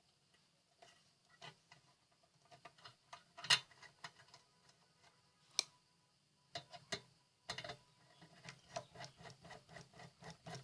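Small clicks and ticks of a screwdriver tightening a screw terminal inside a rice cooker, clamping a wire jumper where the fuse was. There are a couple of sharper clicks in the middle and a run of quick ticks over the last few seconds.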